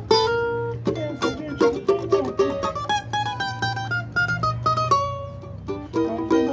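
Cavaquinho made by luthier Luís Barcellos, played with a pick: a melody of quick plucked notes, one note left ringing and fading about five seconds in, then fuller strummed chords resume.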